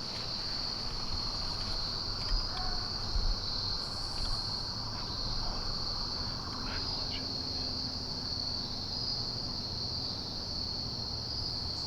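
Evening chorus of crickets: a steady, unbroken high-pitched trill with a few faint ticks.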